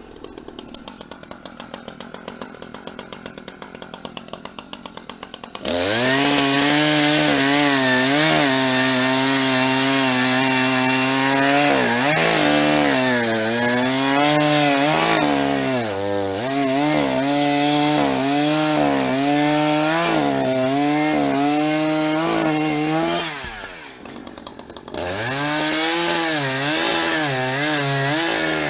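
A two-stroke chainsaw idling with a fast, even putter. About six seconds in it is throttled up and bucks a log, its pitch sagging and recovering as the chain bites into the wood. Near the end it drops off for a second or so, then revs back into the cut.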